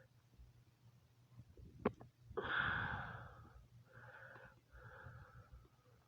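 Breathy sounds from a person close to the microphone: a couple of light clicks, then a short, loud breathy burst about two and a half seconds in, followed by two softer breaths.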